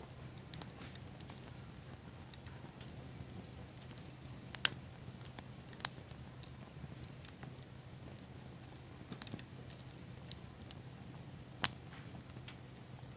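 Small bonfire of pine cones and tree seed pods burning, with faint sparse crackling and a few sharp pops, the loudest two about four and a half and eleven and a half seconds in.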